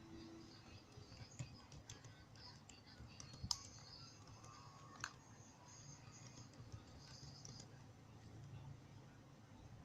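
Near silence with faint, irregular clicks and ticks, and a sharper click about three and a half seconds in and another about five seconds in.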